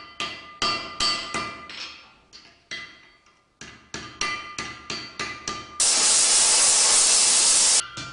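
Blacksmith's hand hammer striking hot low-carbon steel on an anvil, about three blows a second, each with a ringing tone. The blows grow softer and pause around the three-second mark, then resume. About six seconds in, a loud steady hiss cuts in for two seconds and stops abruptly.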